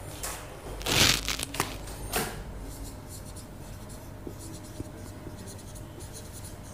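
A few short rustling noises in the first two seconds, the loudest about a second in, then the faint scratching of a marker pen writing on a whiteboard.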